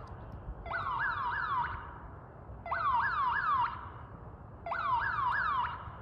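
Home security system's alarm siren sounding in repeating bursts. Each burst lasts about a second and holds a few quick rising-and-falling whoops, with a burst starting about every two seconds.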